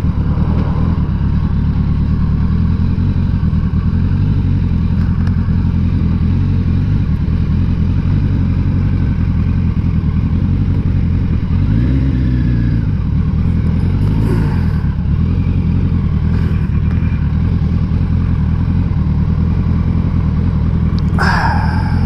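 Kawasaki GTR1000 (Concours) inline-four motorcycle engine running steadily at low speed, heard from on the bike, with a brief rise and fall in engine pitch about halfway through.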